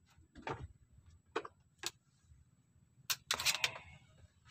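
Fishing gear being handled on a bamboo platform: three separate knocks or clicks in the first two seconds, then a short rattling clatter a little after three seconds.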